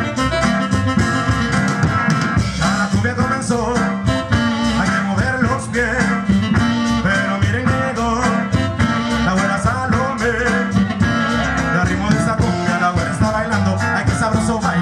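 Live cumbia band playing: a drum-kit beat, keyboard and guitar, with a singer's voice over it from a few seconds in.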